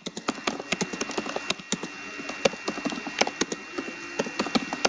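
A run of light, irregular clicks and taps, several a second, such as keys or small objects being handled on a desk, over a faint steady high-pitched tone.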